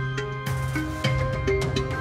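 Instrumental music with drums and a steady beat.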